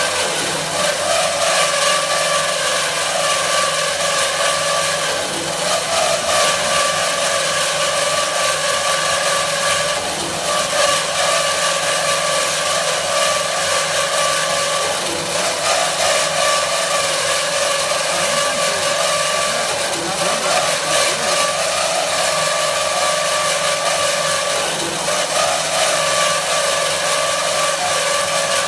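IMET KS-1202 NC band saw running, its blade cutting, a steady machine hum and whine with a slight change in level about every five seconds.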